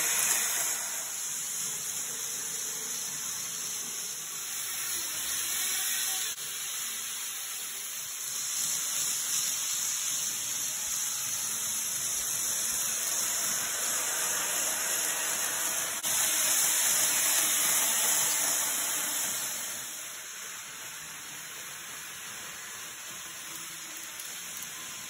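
N-gauge model trains running on the layout track, giving a steady hissing whir of wheels and small motors. It is louder through the middle and drops lower for the last few seconds.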